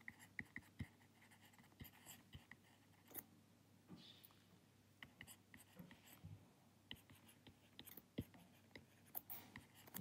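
Faint, irregular taps and scratches of a stylus writing on a tablet screen: a loose string of small ticks, a couple of them a little sharper.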